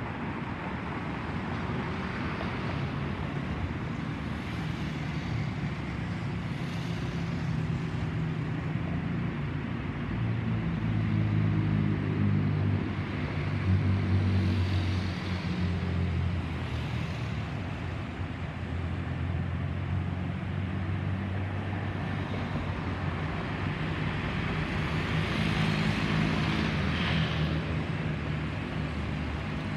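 Distant rumble of a Boeing 737-800's CFM56 jet engines passing high overhead, blended with road traffic noise; it swells around the middle and again near the end.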